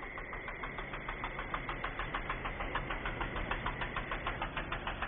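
Riding lawn mower engine running steadily, with a fast, even ticking of about eight or nine beats a second over a low hum.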